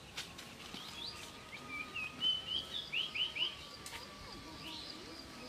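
A songbird singing a varied phrase of short chirps and whistles, ending in three quick down-slurred notes about three seconds in, with another call near 4 seconds, over a faint steady high tone.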